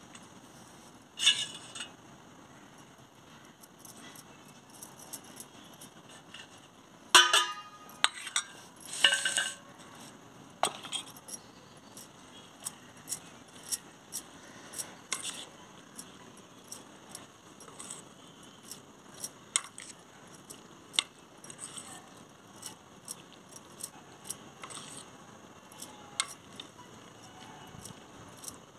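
Glass bangles and a steel bowl clinking as curd salad is mixed by hand. There are a few louder clatters in the first ten seconds, then light clinks about once or twice a second.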